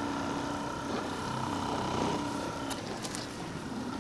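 RecoverFun Plus percussion massage gun running, its motor giving a steady hum and whine as its head pounds against the body.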